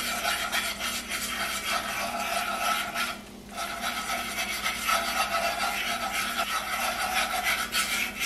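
Small spring mini whisk scraping rapidly round the bottom of a hot cast-iron skillet, mixing flour into melted lard for a roux. The scraping breaks off briefly about three seconds in.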